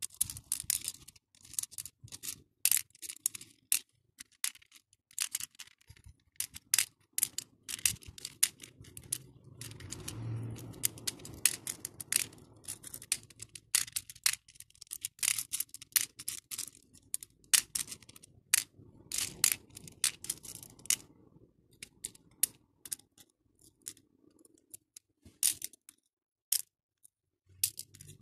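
Small acrylic and metal beads clicking and clattering against each other and the clear plastic compartment trays as they are picked up and dropped. The clicks come quickly and irregularly, with a few short pauses in the second half.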